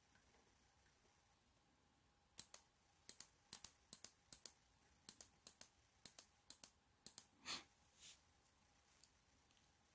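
Quiet clicking at a laptop computer: about ten paired clicks in quick succession, starting a couple of seconds in and stopping about seven seconds in, followed by a soft rustle.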